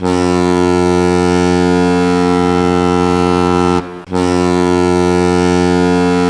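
Ice hockey goal horn blasting: a long, steady, low-pitched blast, a brief break just under four seconds in, then a second blast that carries on.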